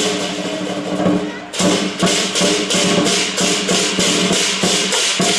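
Lion dance percussion music: drum and cymbals crashing about three times a second over ringing gong tones, breaking off briefly about a second and a half in.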